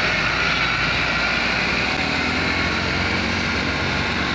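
Heavy road vehicle's engine running steadily, with a high whine over the rumble; no telolet horn sounds.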